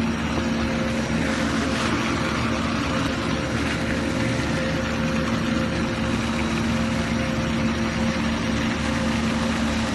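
A machine running steadily with a constant hum and a held whine over a noisy whirr. There is a brief rise in hiss about a second and a half in.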